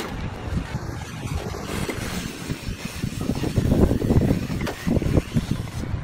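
Wind buffeting the microphone, an uneven low rumble with no steady tone.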